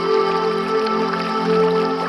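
Calm new-age style music with long held notes, over water dripping and trickling.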